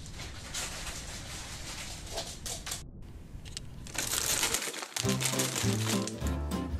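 Clear plastic bag crinkling as it is handled, loudest from about four seconds in, with background music coming in about a second later.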